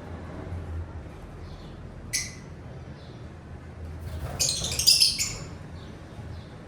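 Small pet parrots squawking: one sharp squawk about two seconds in, then a loud run of squawks about four to five seconds in, with soft chirps between them.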